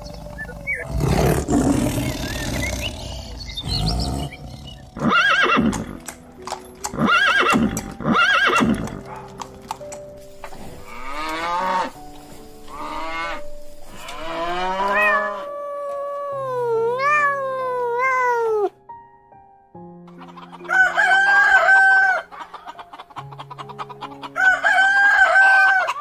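A string of animal calls over background music: a tiger roaring near the start, a cow lowing about halfway through, and more pitched animal calls after it.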